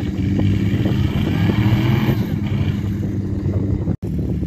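Off-road 4x4 trials vehicle's engine running steadily, with scattered knocks and clatter. The sound drops out briefly about four seconds in, then an engine runs on.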